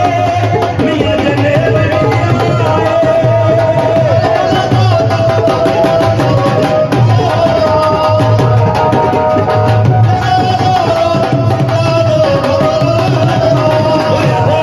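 Music with a steady drum beat and a held melody line over it.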